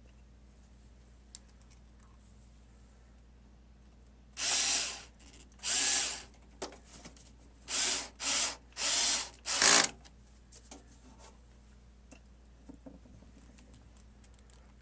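Cordless power drill driving screws into a DVD recorder's metal casing, in six short bursts of whirring over a few seconds.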